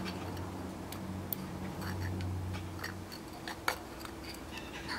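Scattered light clicks and ticks as the opened Stork SC15 thermostat's plastic setting dial and mechanism are handled and turned by hand. A low hum sounds under them for the first three seconds or so.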